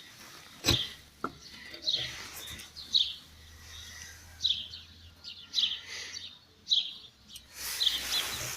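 Small bird chirping repeatedly, short high chirps roughly once a second, with a sharp knock about a second in.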